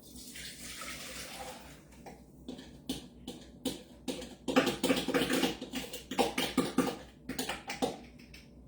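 Liquid splashing in the kitchen for the first couple of seconds, then a run of clinks and clatter of dishes and utensils, loudest a little past the middle.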